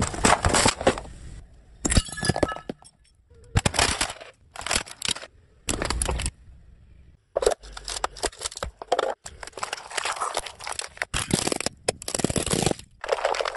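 A car tyre rolling over and crushing objects one after another: aluminium drink cans crunching and splitting, water balloons bursting, hard plastic pieces cracking. The crackling comes in a string of short bursts that cut off abruptly between clips.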